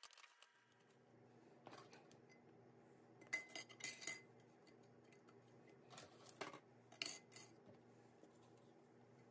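Rusty metal frame strips of an old doctor's bag clinking against a glass baking dish as they are laid into it. The clinks come in a few short clusters, the loudest with a brief ring.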